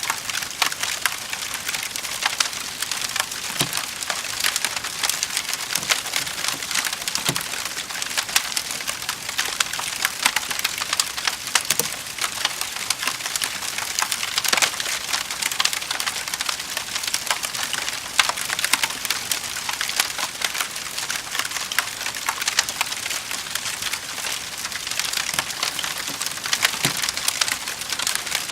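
Wood fire in a fireplace crackling steadily with many small sharp pops, and now and then a deeper pop.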